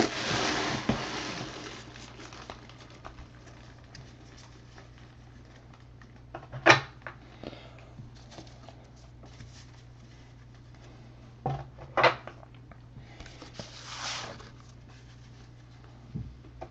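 Trading-card packs and cards being handled on a tabletop: a rustle of packs fading over the first second or two, then a few isolated sharp taps and clicks about seven and twelve seconds in and again near the end, with a brief rustle near fourteen seconds, over a low steady hum.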